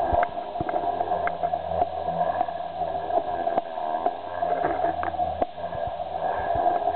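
Protos 500 electric RC helicopter flying aerobatics on two 3S packs in series: the steady whine of its motor and spinning rotor, wavering slightly as it manoeuvres, with scattered sharp clicks.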